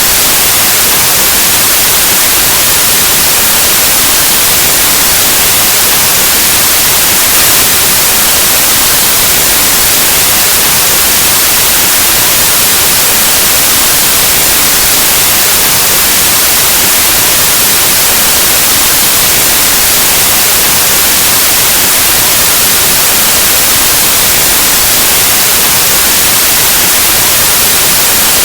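Steady white noise: an even, loud hiss like analog TV or radio static, unchanging throughout.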